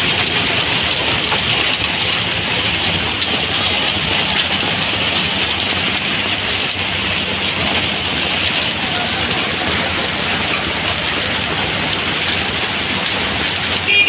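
Heavy rain pouring steadily onto the street and the canvas roof of an auto-rickshaw, with the engines of auto-rickshaws and cars running in stalled traffic underneath.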